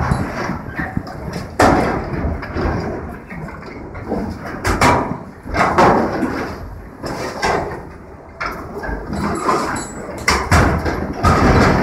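Excavator's hydraulic demolition grapple tearing and crushing scrap metal and tanks: a series of loud metallic bangs and crunches at uneven intervals.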